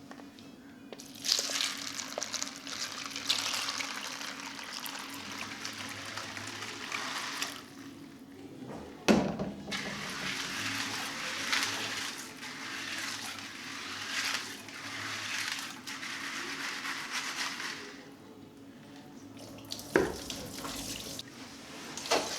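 Water poured from a jug over dry beans to rinse them, in three long pours with short pauses between, and a sharp knock about nine seconds in and again near the end.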